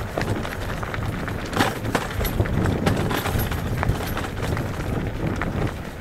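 Mountain bike rolling downhill over a loose gravel and rock track, heard from a helmet camera: a steady low rumble of tyres on stones with irregular clicks and rattles as the bike jolts over rocks.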